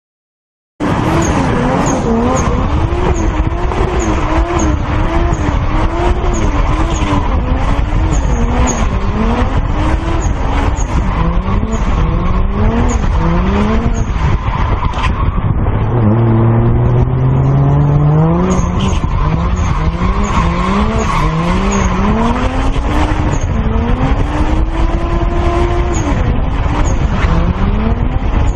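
Car engine revving hard, its pitch rising and falling over and over under throttle, with tyres squealing as the car drifts. It starts suddenly about a second in, after silence.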